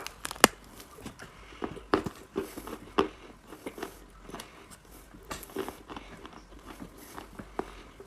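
Chalk being bitten and chewed close to the microphone: sharp crunching snaps, the loudest at the very start and another half a second later, more at about two and three seconds, with softer crackly chewing in between.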